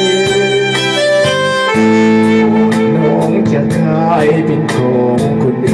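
Live band instrumental passage with no singing: an electronic keyboard plays a sustained, violin- or sax-like lead melody over steady bass notes and a beat of about two hits a second.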